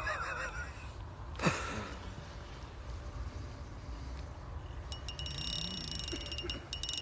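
Electronic carp-fishing bite alarm sounding a rapid run of high beeps from about five seconds in, signalling a bite. A brief sharp sound about a second and a half in is the loudest moment.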